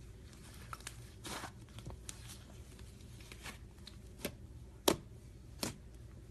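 Slime being squeezed and stretched by hand, giving irregular short clicks and pops, the sharpest a little before five seconds in.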